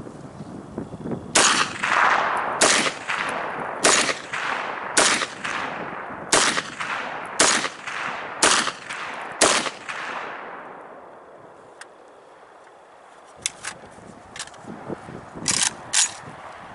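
Eight single shots from an AK-pattern rifle, fired one at a time about a second apart, each with a short echo. After a pause, a few fainter sharp clicks and knocks come near the end.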